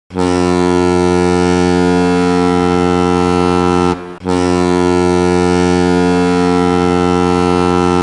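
Ice hockey arena goal horn sounding two long, steady, low-pitched blasts of about four seconds each, with a short break between them.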